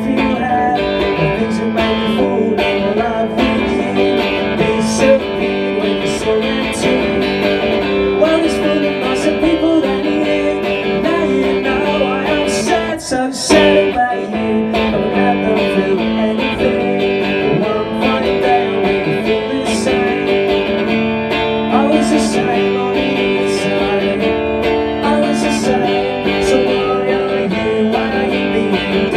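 Electric guitar strummed live through an amplifier, an instrumental passage of a song with steady repeated chords and a brief break about halfway through.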